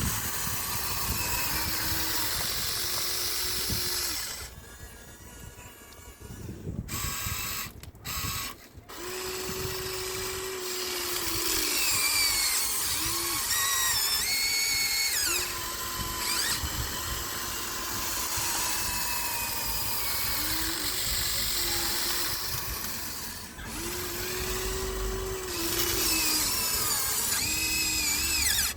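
Electric motors and gears of a Huina 1593 RC excavator whining as it digs and swings, the whine starting, stopping and shifting pitch every second or two. A quieter spell of about two seconds comes around five seconds in.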